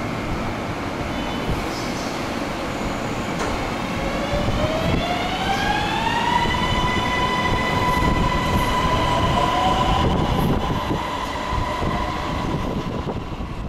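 Bangkok MRT Blue Line metro train pulling away from the platform: the rumble of its running gear, with an electric traction motor whine that rises in pitch about four seconds in and then holds at one steady pitch as the train gathers speed.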